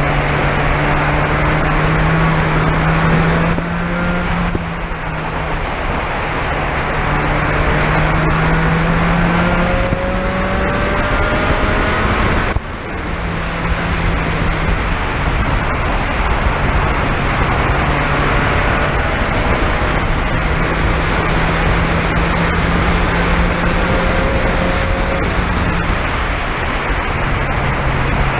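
Onboard sound of a Spec Racer Ford Gen3 race car at speed: its four-cylinder engine revs up in rising sweeps, with several short drops where it shifts or lifts off, the sharpest about twelve seconds in. A loud, steady rush of wind and wet-tyre hiss in the open cockpit runs underneath.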